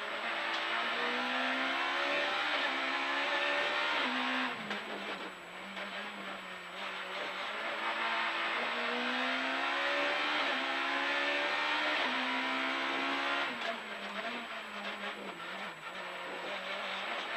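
Rally car engine heard from inside the cabin at full throttle. The revs climb steadily, fall away sharply about four and a half seconds in, climb again for several seconds, then drop near the end as the driver lifts off, over steady tyre and road noise.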